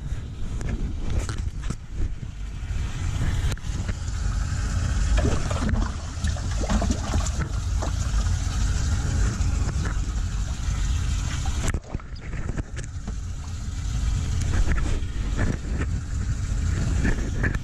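Wind rumble and jacket fabric brushing and rubbing over a chest-mounted camera's microphone, with scattered small knocks.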